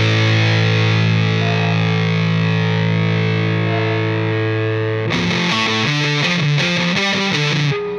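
Rock music on distorted electric guitar: a single chord held and ringing for about five seconds, then a run of quick chopped notes and chords.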